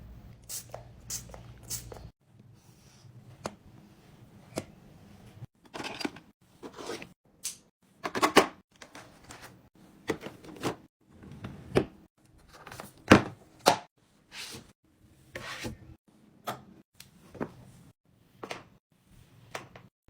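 Containers and groceries being handled and set down while restocking a fridge: an irregular run of clicks, taps and thunks, with the loudest knocks about eight and thirteen seconds in.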